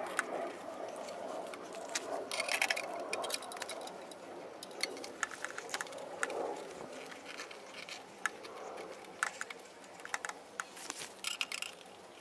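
Small metal parts handled by gloved fingers at a lawnmower carburetor's linkage: scattered light clicks and scrapes with soft rustling, as a small fuel-line retainer clip is worked toward its place.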